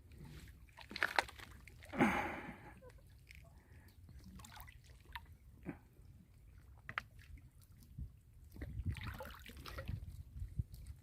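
Seawater sloshing and splashing faintly at the water's edge, with scattered small splashes and clicks and one louder burst about two seconds in.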